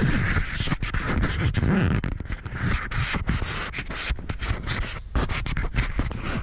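Fingers rubbing, scraping and clicking over the OEM GoPro plastic frame case of a Hero 5 Black, picked up close through the camera's own very sensitive mics. It is continuous handling noise, a rustling scrape with many small clicks.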